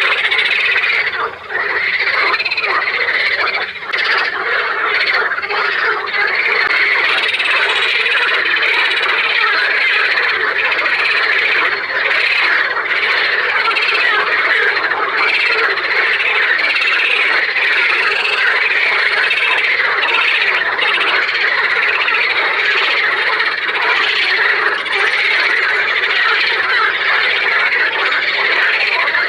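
A chorus of many frogs calling at once: a loud, dense, continuous mass of overlapping croaking calls.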